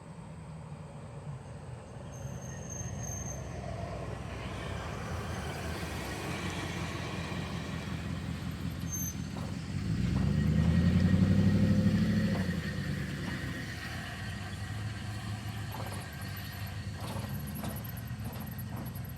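Freight train rolling past, a steady rumble of wheels on the rails with a few brief high squeals. The sound swells to its loudest about ten to twelve seconds in, then eases back to the steady rumble.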